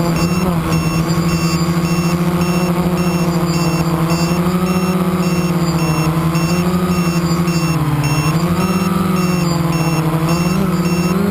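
Quadcopter's electric motors and propellers whining steadily, the pitch dipping and rising with the throttle about eight seconds in. A faint high beep repeats at an even pace alongside.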